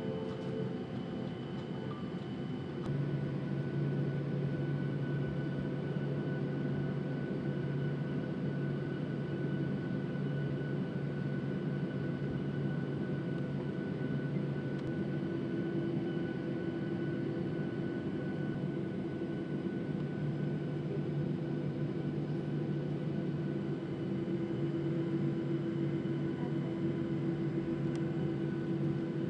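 Cabin noise of a Boeing 737-700 taxiing, its CFM56 turbofans running steadily at low power: an even hum with a low drone that strengthens about three seconds in and a higher steady tone joining about halfway through.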